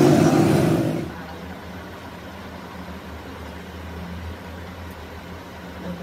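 Vehicle engine running in street traffic, its pitch wavering. It cuts off abruptly about a second in, leaving a much quieter steady low hum of workshop machinery.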